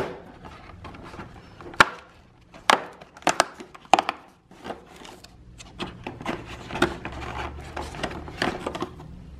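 A cardboard advent calendar door being pressed, torn and pried open by hand: a run of sharp cardboard clicks and snaps, then rustling and scraping as a small tube is pulled out of the compartment.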